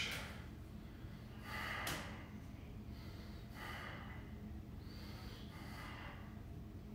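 A man breathing hard under the strain of an ab hold: three short, forceful breaths about two seconds apart.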